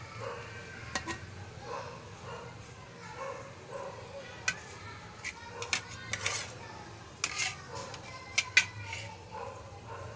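Metal spatula clinking and scraping against a wok as the food is stirred, with several sharp knocks in the second half.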